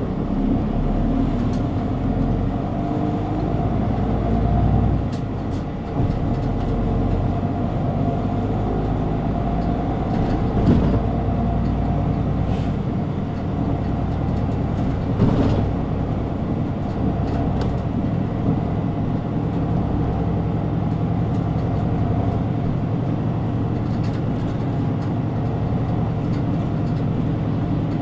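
Route bus running along the road, heard from inside the cabin: a steady engine and road rumble whose engine note rises and falls as the bus speeds up and slows. There are two brief thumps, at about 11 and 15 seconds in.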